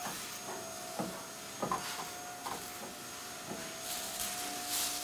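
CNC plate roller running with a steady whine as a metal sheet for a pontoon tube curls through its rollers. The thin sheet makes irregular wobbling sounds about once a second as it bends, with a brief hiss near the end.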